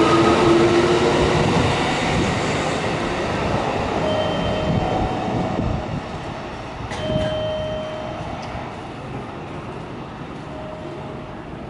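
Kintetsu 9820 series electric train pulling out of the station. The whine of its Mitsubishi IGBT VVVF inverter rises in pitch for the first second or two, then the rumble of its wheels fades steadily as the train moves away.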